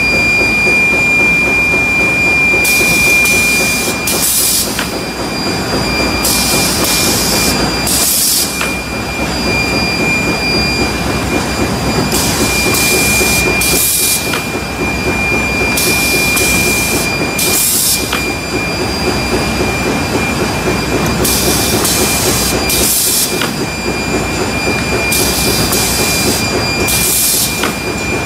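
Diaper production line's conveyor and stacking machine running with a steady mechanical noise and a constant high whine. A hiss comes in for a second or two every four to five seconds.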